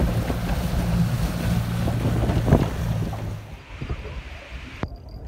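Wind buffeting the microphone over the low, steady hum of a boat's motor. Near the end the sound drops abruptly to much quieter.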